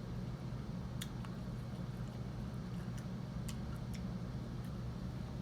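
A person eating close to the microphone: about six sharp clicks and small cracks, spaced irregularly, over a steady low hum.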